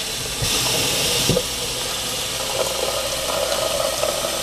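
Kitchen faucet running water into a blender jar, filling it. A harsher hiss for about the first second settles into a steady filling sound.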